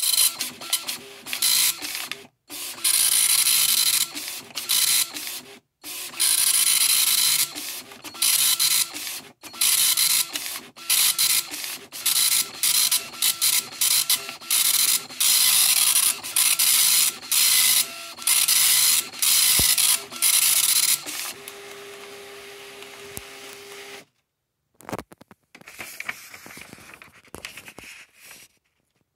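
Panasonic KX-P2135 24-pin colour dot matrix printer printing a test page: the print head runs across the paper in loud passes of one to two seconds each, with short pauses between. About 21 seconds in it changes to a quieter steady whirring hum for a few seconds, and near the end the printout paper rustles as it is handled.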